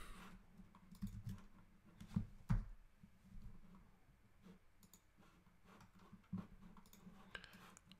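Scattered faint clicks of a computer mouse and keyboard: a few short, sharp clicks spaced irregularly, about half a dozen in all.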